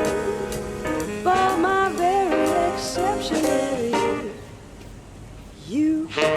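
Jazz background music with brass and saxophone lines over a band, thinning out for a moment about four seconds in before the horns come back in.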